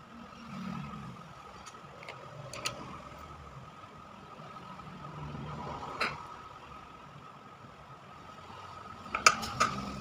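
A few sharp clicks and taps of a mobile phone circuit board being handled and set down on a workbench, the loudest pair near the end, over a steady background hum.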